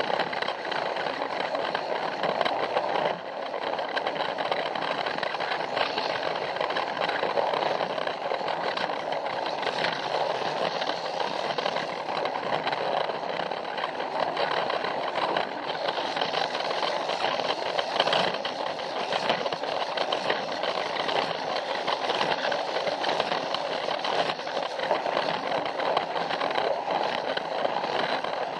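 Battery-powered Plarail toy train's small electric motor and plastic gearbox whirring steadily as it runs along plastic track, with faint clicks from the wheels over the track.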